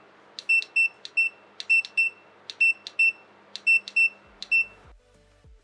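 Short, high electronic beeps from a preheater's control panel, coming in quick groups of two or three about once a second as its temperature is set to 180 °C. Near the end the beeping stops and background music begins.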